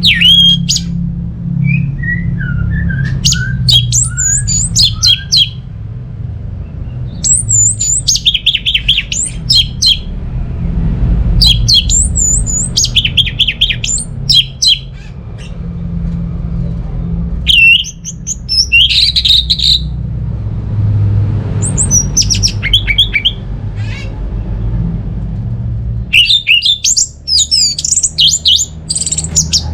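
Orange-headed thrush singing: about seven phrases of quick, varied whistles and chirps, each a second or few long, separated by short pauses. A steady low hum runs underneath.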